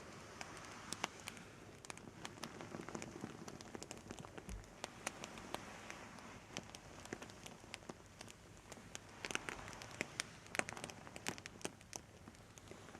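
Close-miked ASMR crackling: a quiet, dense, irregular patter of small sharp clicks and pops over a soft hiss, thickening for a couple of seconds past the middle.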